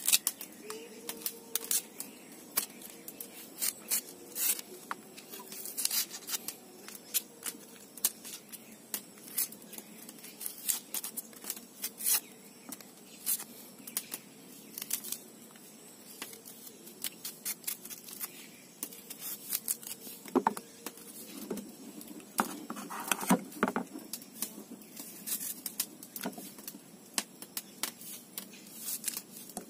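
A kitchen knife peeling and cutting a shallot by hand: scattered small clicks, scrapes and the tearing of the papery skin, with no steady rhythm.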